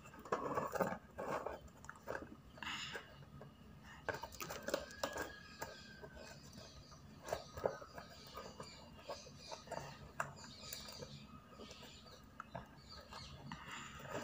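Hands handling a homemade cardboard locker box: scattered light taps, scrapes and rustles of cardboard as the lid is pressed shut and locked.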